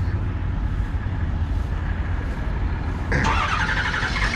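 Heavy diesel engine running steadily, then revved up sharply about three seconds in.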